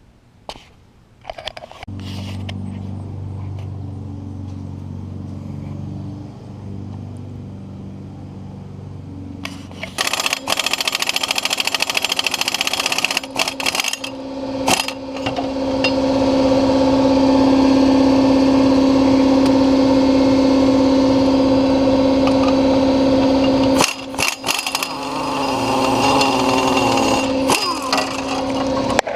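Polaris Sportsman 500 ATV engine starting and idling, then run up under throttle from about ten seconds in with a loud, ragged clicking racket from the transmission, which drops out briefly near the end. The noise is the sign of a stretched main drive chain skipping over the gear teeth as the machine tries to pull.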